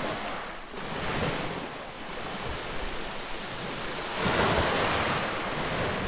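Small waves of a calm Black Sea washing onto a pebble beach, swelling and easing several times, with the loudest wash about four seconds in.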